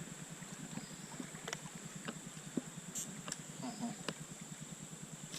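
Quiet creekside ambience: an even low water-like rush under a steady high-pitched drone, with a few faint sharp clicks and small chirps.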